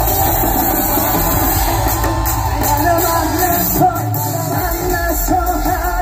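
Live concert music played loudly over a PA system, with a singer's voice carrying the melody. The bass drops out briefly about four seconds in.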